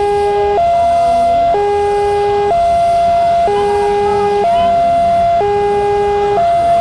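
Railway level-crossing warning siren sounding a steady two-tone alternation, switching between a higher and a lower tone about once a second.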